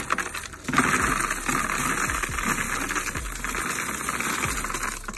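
Coins (quarters, dimes, nickels and pennies) being poured by the handful into a coin-counting machine's tray, a dense metallic clatter. It breaks off briefly about half a second in, then runs on steadily.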